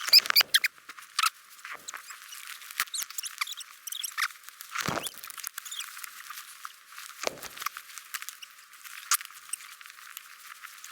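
Footsteps crunching and squeaking in deep snow: a run of small crackles and squeaks with a few heavier thumps about five and seven seconds in.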